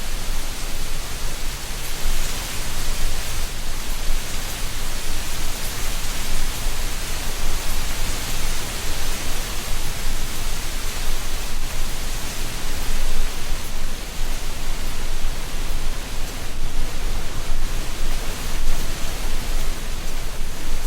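Autumn wind blowing through treetops, rustling dry leaves in a steady rush that swells and eases gently.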